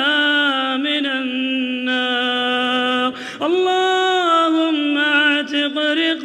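A man's voice chanting an Arabic supplication (dua) in long, drawn-out melodic notes, the pitch stepping up and holding higher about three seconds in.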